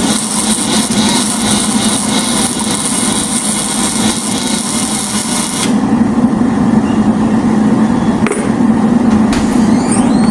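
Metalworking in a workshop: a harsh, crackling hiss lasts about six seconds and cuts off abruptly. A steady low hum carries on under it, and a few sharp taps follow near the end.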